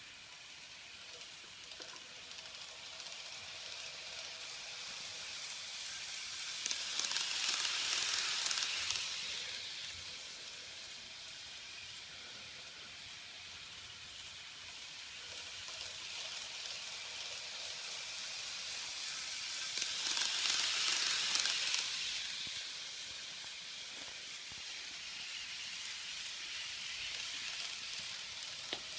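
N-scale Kato model train running on Kato Unitrack: a steady, hissy rattle of small wheels and motor that swells twice, roughly 13 seconds apart, as the train comes round close by.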